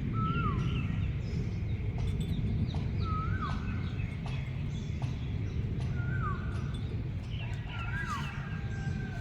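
A songbird repeats a short whistled call about every two to three seconds, each call a brief level note that slides quickly down. Under it runs a steady low rumbling noise, the loudest part of the sound, with scattered faint clicks.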